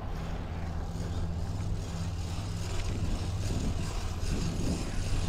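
Street traffic: a steady low engine hum with road noise, growing a little louder about three seconds in.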